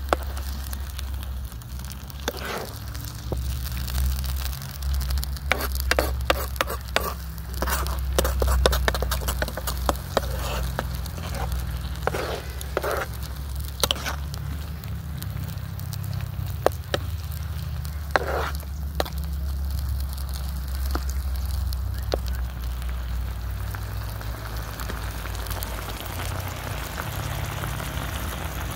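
A pot of coconut-milk rundown sauce sizzling and bubbling over an outdoor cooking fire, with scattered sharp crackles and clicks, densest in the first third, and a few brief scrapes. A steady low rumble runs underneath.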